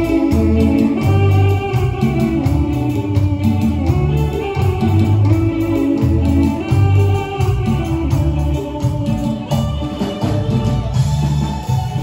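A live band playing an instrumental passage with no singing: a steady beat with a strong bass line and pitched instruments on top.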